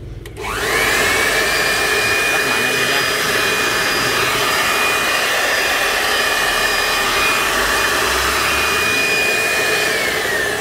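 Hitachi 450 W electric blower switched on. Its motor spins up with a rising whine, then runs at full speed with a steady whine over a rush of air. Near the end it is switched off and the whine falls as it winds down.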